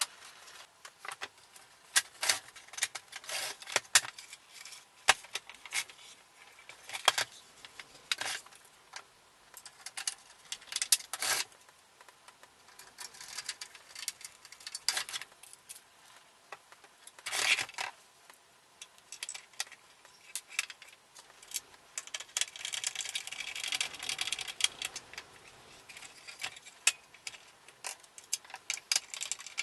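Plastic housing of a Mr. Heater Buddy propane heater being fitted back together by hand, with a hand screwdriver turning its screws: irregular clicks, knocks and rattles of plastic and tools, with a stretch of denser scraping about two-thirds of the way through.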